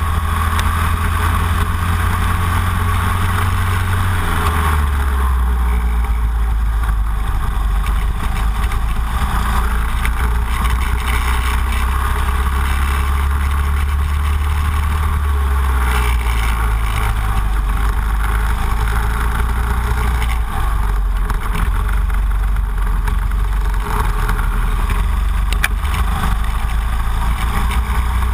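Go-kart engine running hard on track, heard loud from the onboard camera; its pitch drops in steps about four to five seconds in, again around sixteen seconds, and once more near twenty seconds as the kart slows for corners.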